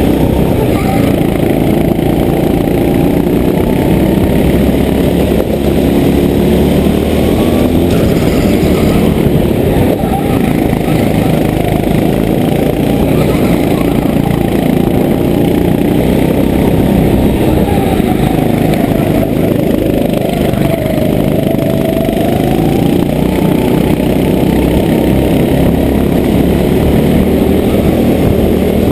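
Go-kart engine running hard and continuously at speed, its pitch dipping and rising again with the throttle through the corners, mixed with the engine of the kart just ahead.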